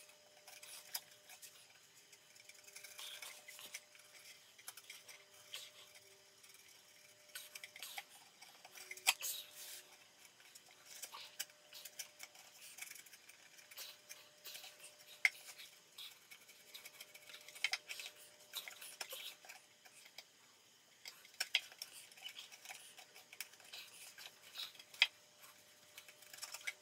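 Razor blade cutting around a cardboard bass port inside a subwoofer cabinet: faint, irregular scrapes and clicks, with a few sharper ticks.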